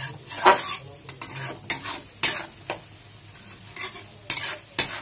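Flat steel spatula scraping and stirring sauce-coated onions and capsicum in a metal kadhai, in about nine quick, irregular strokes with a short pause in the middle.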